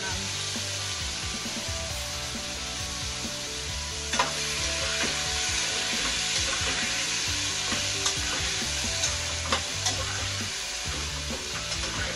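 Chopped vegetables sizzling in hot oil in a metal pot as they are stirred, the sizzle growing a little louder about four seconds in. A few sharp clicks of the stirring utensil against the pot.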